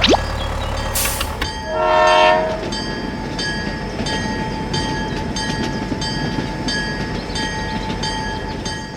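A small machine runs steadily with a regular clicking. A short horn-like blast sounds once, about two seconds in.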